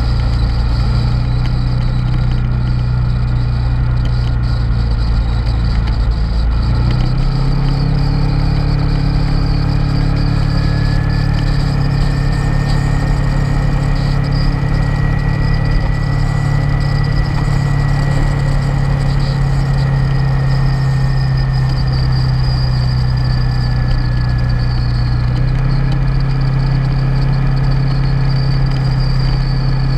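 Motorcycle engine running steadily at road speed under a continuous rush of road noise; the engine note shifts about seven seconds in and again near the end.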